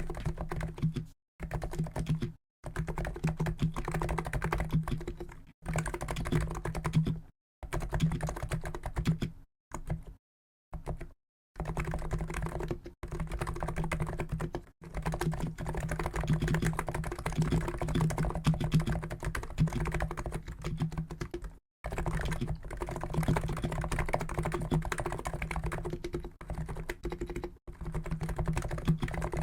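Continuous fast typing on a COX Endeavour keyboard with Noppoo Niz 50 g electro-capacitive (EC) switches: dense runs of keystrokes in bursts of a second to several seconds, broken by short pauses.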